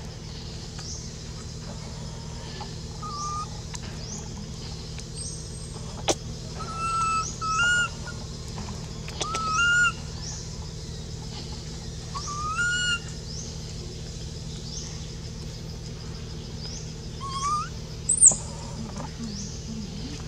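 Baby macaque giving short whimpering coos that rise in pitch at the end, about eight of them, loudest around the middle. Faint high chirps repeat every second or two in the background.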